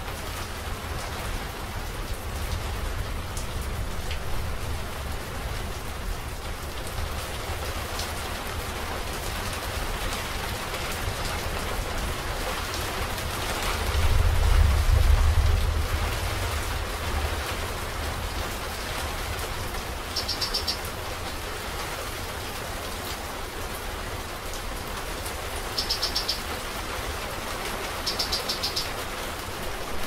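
Steady rain, with a low rumble of distant thunder underneath that swells for about two seconds halfway through. A bird's short, high trill sounds three times in the last third.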